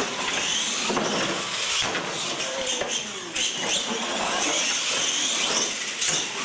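R/C monster trucks racing on a concrete floor: their motors and drivetrains whine, rising and falling with speed, over tyre noise, with a few sharp knocks as the trucks land off the ramps.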